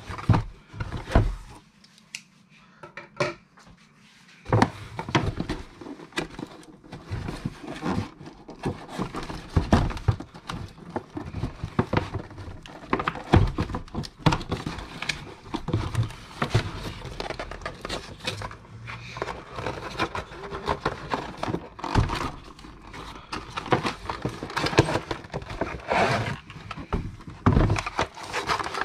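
Hands unpacking and handling packaging and RC car parts: irregular knocks, clicks and rustling. There is a quieter spell about two seconds in, then steady handling noise.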